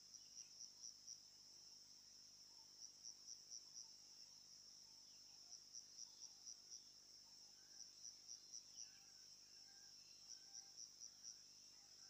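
Faint insects chirping: a steady high trill with louder pulsed chirps in groups of about five or six, repeating every two to three seconds. A few faint short bird chirps sound underneath.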